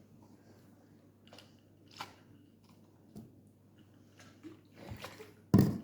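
Scattered light clicks and knocks of objects being handled in a kitchen, ending in one sharp, louder knock near the end.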